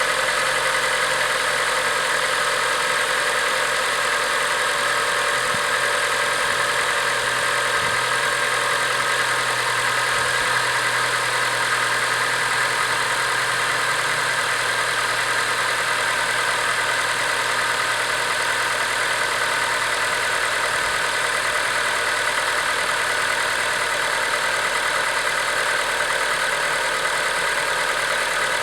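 Acura RSX Type S's 2.0-litre K20 four-cylinder engine idling steadily while still cold. The owner says it stays quiet until it warms up, when a ticking noise appears.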